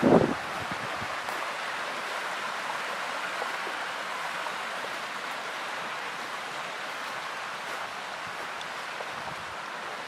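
Mountain stream running over a rocky bed, an even, steady rush of water. A brief, loud, low thump on the microphone comes right at the start.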